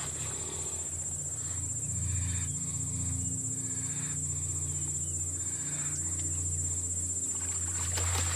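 Insects chirring steadily in a high, even whine, over a low steady hum.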